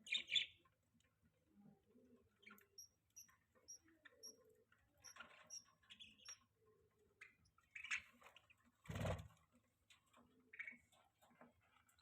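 Budgerigar chirps, soft and scattered, with a sharper double chirp right at the start and a run of faint, evenly spaced high peeps early on. A soft thump about nine seconds in.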